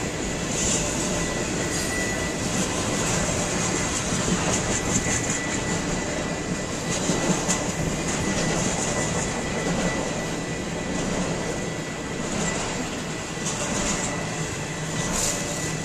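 Intermodal freight train of trailers on flatcars rolling steadily past: a continuous rumble and clatter of steel wheels over the rails.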